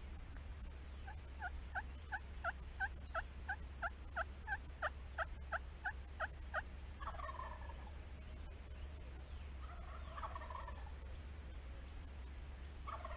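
A series of about seventeen short yelps, evenly spaced at roughly three a second, followed by a wild turkey gobbling three times, about three seconds apart, the last near the end.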